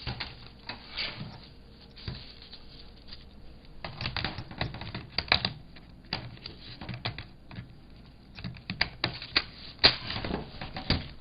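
Irregular plastic clicks, taps and knocks from handling an Acer Aspire 5742G laptop while its battery is slotted back in, with busier clusters of clicks near the middle and toward the end.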